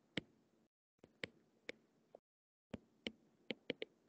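Stylus tapping on a tablet screen while handwriting: about ten short, faint ticks at uneven intervals.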